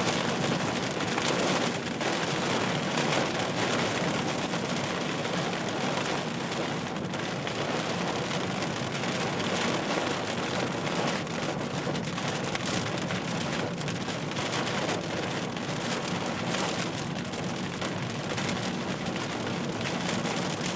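Heavy storm rain falling steadily on a surface, a dense patter of small hits throughout.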